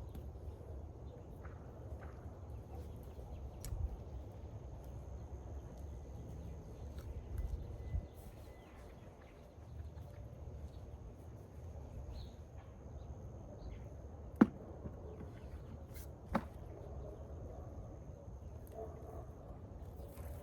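Garden spade fork working the soil of a sweet potato bed, with scattered small clicks and two sharp knocks, the second about two seconds after the first, over a low rumble; a faint steady high-pitched tone runs underneath.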